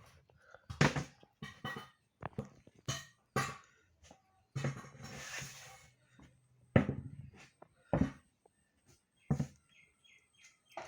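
A cat eating rice and fish: irregular wet chewing and smacking clicks, with a few longer breathy snuffles in between.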